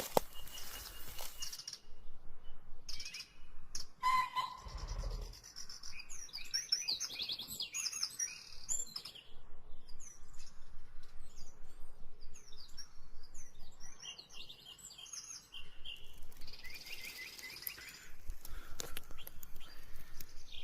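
Wild birds chirping: many short, quick chirps in a busy run through most of the stretch, with a few brief bursts of noise in the first few seconds.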